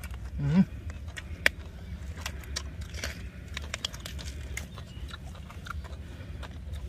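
Close-up eating sounds: chewing and crunching with many scattered small clicks and rustles as grilled fish and fresh greens are eaten by hand, over a steady low rumble. A short rising voice-like call comes about half a second in.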